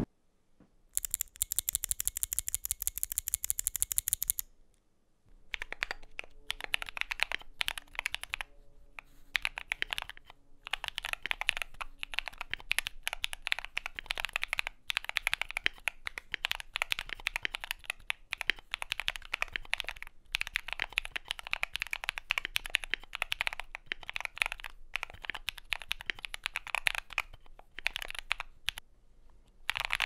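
Typing on an Epomaker GK68XS 65% mechanical keyboard with Akko CS Blue tactile switches and Akko ASA keycaps. A fast dense run of keystrokes comes in the first few seconds, then steady typing clicks with short pauses.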